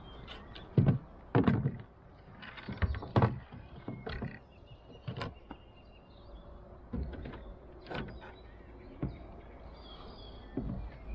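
Kayak paddle strokes: the blades dip into the water in irregular dull thumps and splashes, some in close pairs, with small knocks between them.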